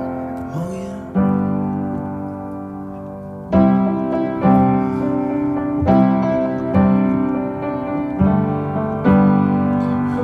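Background music: piano chords struck one after another and left to ring, with no singing.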